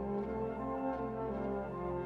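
Instrumental background music: a melody of held notes that change every half second or so over a steady low bass.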